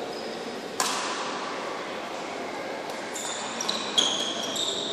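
Badminton rally: a sharp racket strike on the shuttlecock about a second in, echoing in the hall, and another strike about four seconds in. Several short high squeaks of shoes on the court floor come between and around the second strike.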